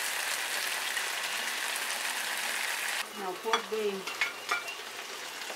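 Vegetables sizzling in a hot wok, a steady frying hiss that stops abruptly about three seconds in. After it come brief voice sounds and a few sharp clicks.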